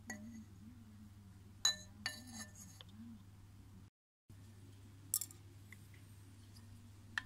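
Light metallic clinks of a polished aluminium bicycle stem being handled on a workbench, each ringing briefly. A small cluster comes about two seconds in, then single clinks later on.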